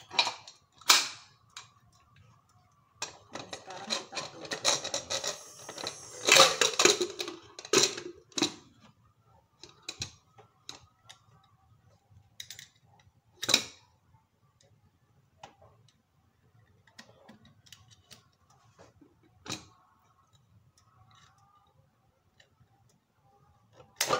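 Metal pressure cooker being closed: the lid scrapes and clatters against the pot's rim for several seconds near the start, followed by scattered light clicks and knocks as the handles are brought together and locked.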